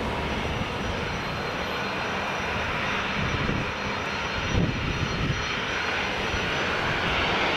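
Boeing 737-300's CFM56 turbofan engines running at taxi power as the jet taxis: steady jet noise with a faint high whine.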